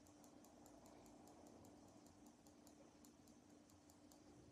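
Electronic cat toy with a spinning feather wand running: faint, rapid ticking, about five ticks a second, over a low steady hum.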